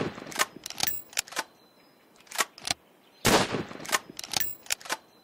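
Gunshots, each with a ringing tail, each followed by a quick run of sharp clicks and clacks. A second shot comes a little past three seconds in, and the same run of clicks follows it.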